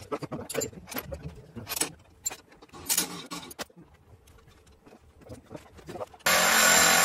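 Wrenches clinking and ticking on the steel flange bolts of a cast-iron circulator pump flange as they are tightened, in irregular sharp metallic clicks. About six seconds in, a sudden loud steady rushing noise starts and takes over.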